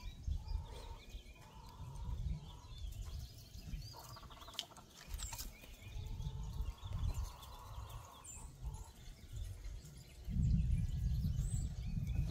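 Wind buffeting the phone's microphone in irregular low gusts, the strongest near the end, over faint bird chirps and soft hen clucks.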